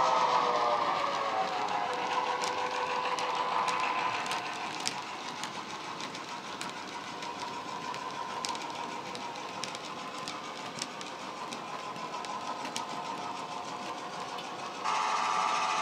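Sound decoder in a model Irish 141 class diesel playing an EMD diesel engine sound through a small speaker. The engine sound fades as the locomotive draws away while its wagons roll past with occasional sharp wheel clicks on the track, and it comes back louder near the end.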